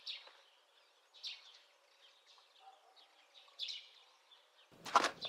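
Faint outdoor quiet with a few short bird chirps, and a brief louder noise near the end.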